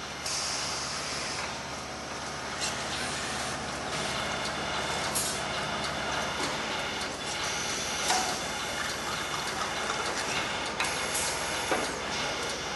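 Automated tag stamping and bending machinery running: a steady mechanical hum with scattered sharp metallic clicks, and a short air hiss just after the start.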